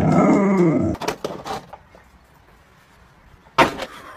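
Pit-bull-type dog giving one drawn-out, wavering howl-like moan about a second long, followed by a few short clicks. A brief loud noise comes near the end.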